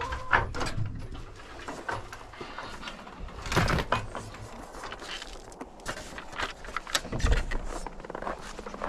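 Scattered knocks, clunks and rustling as things are moved about and handled, with two heavier knocks about three and a half and seven seconds in.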